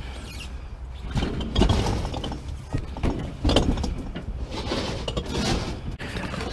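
Irregular knocks, scrapes and clatter of a mini fridge being manhandled, with a steady low rumble underneath.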